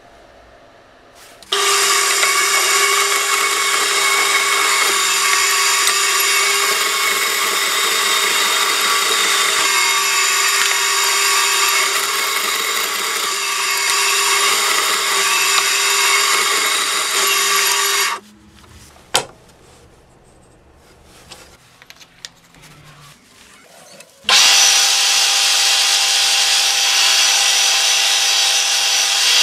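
A bandsaw runs steadily, cutting through a block of wooden knife-handle stock, and cuts off about two-thirds of the way through. After a quieter stretch with one sharp click, a mill spindle starts up and a drill bit bores into a wooden handle block.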